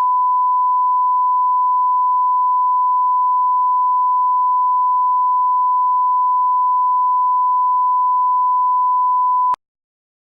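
Steady 1 kHz sine-wave reference tone, the line-up test tone at the head of a video master, cutting off sharply about nine and a half seconds in.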